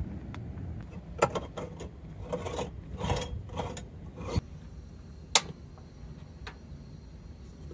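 Metal clinks and scrapes of a stainless-steel stovetop moka pot being handled and screwed together, a quick run of clatters, then a single sharp click about two seconds later.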